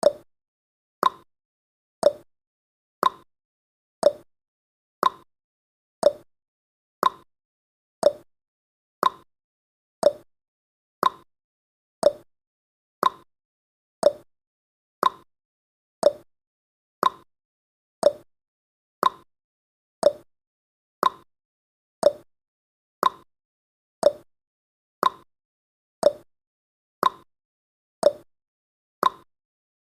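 Countdown timer's ticking sound effect: a short, sharp clock-like tick once every second, steady and evenly spaced, with silence between ticks.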